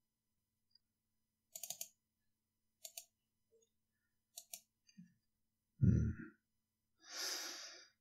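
Sparse, quiet computer mouse and keyboard clicks, a handful of short clicks, some in quick pairs, over the first five seconds. They are followed by a brief low sound about six seconds in and a soft exhaled breath near the end.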